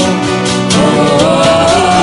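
Male worship singer singing over his strummed Fender acoustic guitar. A little under a second in, his line rises into a long held note.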